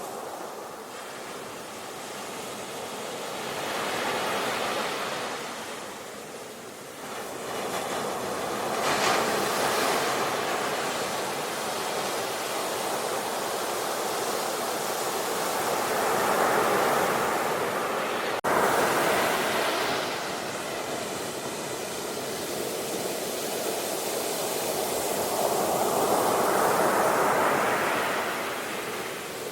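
Ocean surf, waves breaking and washing in, the roar swelling and easing every few seconds. There is a brief sharp break in the sound about two-thirds of the way through.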